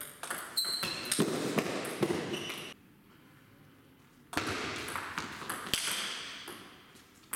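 Table tennis rally: the ball clicks sharply off the bats and the table in quick succession. The hitting breaks off for about a second and a half in the middle, then picks up again.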